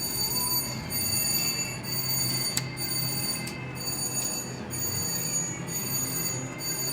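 Casino slot-floor ambience: slot machines chiming and ringing with steady high electronic tones over a background murmur, with a few sharp clicks.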